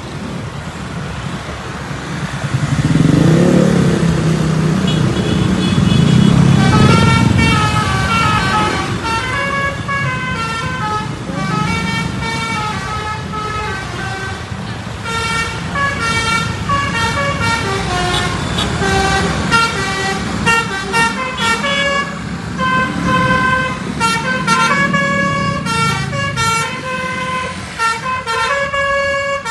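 A bus's basuri musical horn playing a tune of short, stepped notes, which get quicker and choppier near the end. About three seconds in, the bus's engine swells loudly under the horn as it passes, then drops back.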